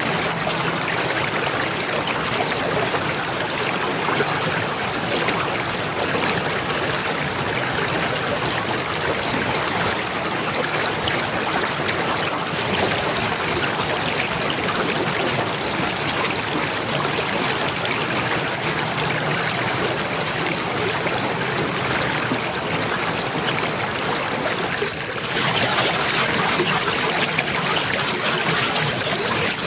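Running water of a stream, trickling steadily with no break, apart from a brief dip about 25 seconds in after which it is slightly louder.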